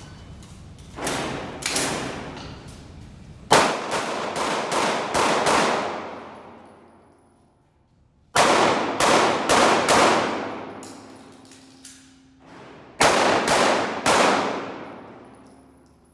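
Pistol shots fired in quick strings of two to five with pauses between, each crack followed by a long ringing tail from the enclosed indoor range.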